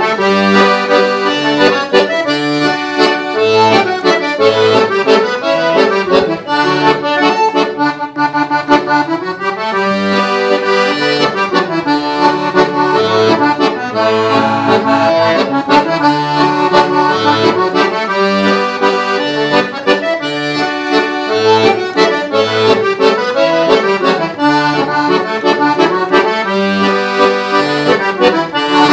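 Todeschini piano accordion played solo in a waltz: a right-hand melody in chords over regularly pulsing left-hand bass notes.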